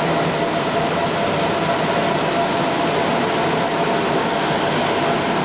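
Sydney Light Rail Variotram standing at an underground platform, its onboard equipment giving a steady hum with a thin constant whine.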